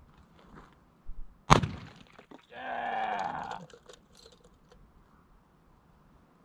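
A single loud pistol shot about a second and a half in, followed by a drawn-out, slightly falling voice-like call lasting about a second.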